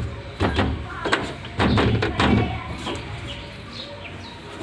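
Door lock and latch linkage parts inside a car door, panel removed, knocking and rattling in a run of sharp clicks as they are shaken by hand. The rattle comes from loose parts striking the door's metal body.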